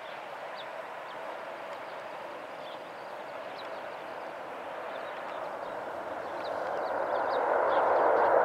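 Air India Boeing 777's GE90 jet engines after touchdown, a steady jet noise that swells into a much louder roar over the last two seconds or so as the engines spool up for reverse thrust during the landing rollout.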